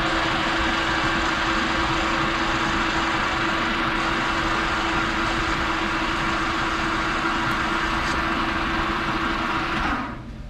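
Metal lathe running at speed with a steady hum and whir, its chuck spinning an aluminum part against a turning tool. Near the end the lathe is switched off, and the sound drops away as it winds down.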